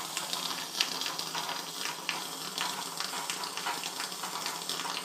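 Steam hissing steadily out of a pressure cooker through a homemade slotted adapter, with small irregular ticks and spits.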